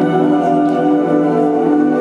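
Music with held notes changing pitch every fraction of a second, playing steadily throughout.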